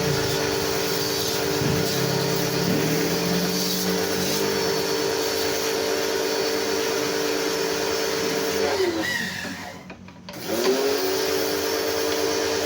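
An electric motor-driven machine running at a steady pitch, winding down and stopping about nine seconds in, then starting again within a second and rising back to the same steady speed.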